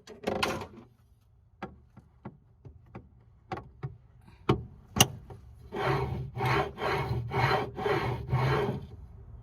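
Liebherr fridge drawer and its rails being worked: a few light clicks and knocks, then from about six seconds in roughly six scraping, rubbing strokes at about two a second.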